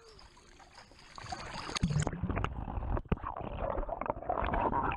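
Pool water heard through an action camera's waterproof housing as it goes under about two seconds in. The sound turns muffled, with the treble cut off, and is full of underwater bubbling and scattered knocks and thumps.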